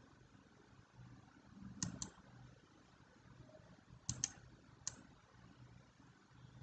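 Computer mouse clicking: a quick pair of clicks about two seconds in, another pair about four seconds in, and a single click just after, over a faint low hum.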